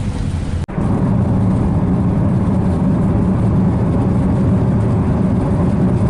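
2006 Mitsubishi Lancer driving on the road: steady engine and tyre noise with a strong low hum, while the car has a vibration and pull that the mechanic has traced to the left front. The sound breaks off for an instant just under a second in and then carries on unchanged.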